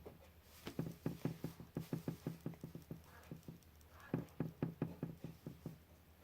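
A quick, even series of light taps, about four a second, that stops shortly before the end.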